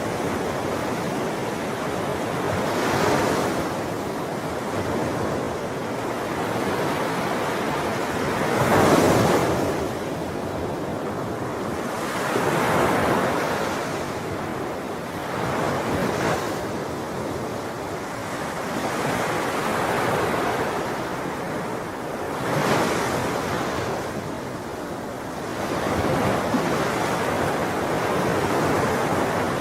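Sea waves breaking and washing up a shore: a continuous hiss that swells with each wave every few seconds, the biggest surge about nine seconds in.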